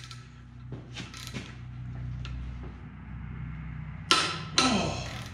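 Torque wrench on an ARP head stud in an aluminium BMW M54 block: a few ratcheting clicks, then a slow pull under heavy load toward 110 ft-lb, with a loud sharp click about four seconds in.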